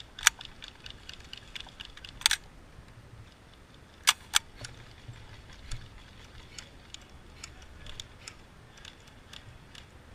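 Airsoft gunfire: scattered sharp cracks of shots, the loudest about a quarter second in, a close pair about two seconds in and two more about four seconds in, with fainter distant shots in between.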